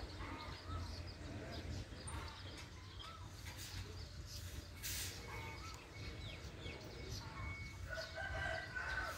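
Birds calling around the station, short scattered calls with a longer held call near the end, over a low steady background rumble.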